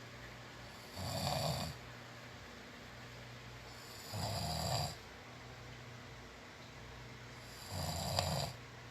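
A sleeping person snoring: three snores, each under a second long, about three and a half seconds apart.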